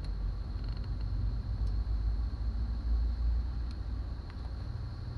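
Steady low rumble, like wind buffeting the microphone, with a few faint light clicks as a screwdriver and small screws are handled on a car's door panel trim.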